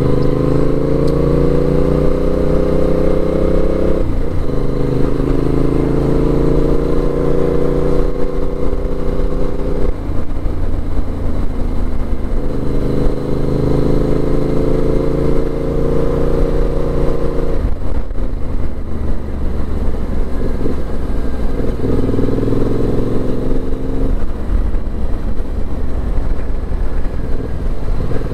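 Yamaha 689 cc CP2 parallel-twin motorcycle engine under way, revving up through the gears: the note climbs, then drops at each gear change, about six times.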